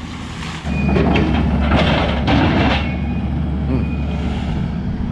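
Diesel engine of a compact track loader running close by, its steady low rumble jumping up suddenly in level about half a second in.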